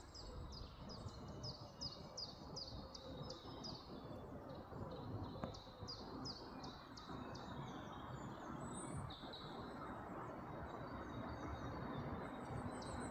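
A small bird singing runs of quick, high, down-slurred chirps, about three a second, with pauses between the runs, over steady background noise.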